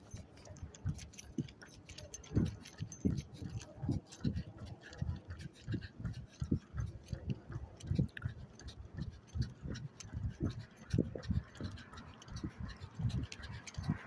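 Running footfalls, a steady rhythm of short low thuds about three a second, with the handheld phone jostling and clicking against the hand at each stride.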